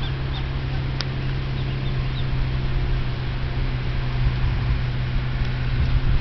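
A few faint, short, high peeps from ducklings in the first couple of seconds, over a steady low hum and background noise. A single sharp click about a second in.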